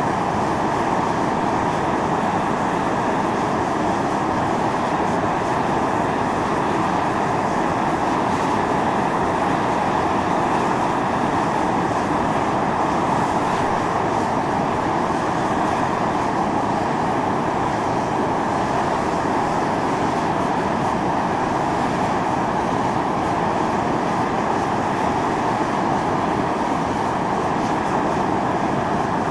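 Steam and volcanic gas venting from a fumarole on Atosanupuri (Mt. Io): a steady, even rush of noise with no change in level.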